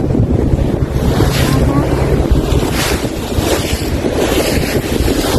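Wind buffeting the microphone on the deck of a moving harbour ferry, over the rush of its wake water and the low hum of its engine, which fades about two seconds in.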